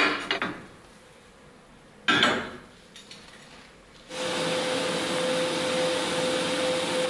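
Two metal clanks as steel parts are set down on a steel welding table, one at the start and one about two seconds in. About four seconds in, a welding arc (TIG torch) strikes and runs with a steady hiss over a single steady hum as the parts are tacked together.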